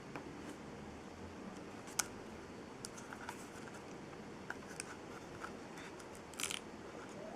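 Toy packaging being handled: scattered small clicks and taps, one sharper click about two seconds in, and a short crinkle of packaging near the end, over faint room hiss.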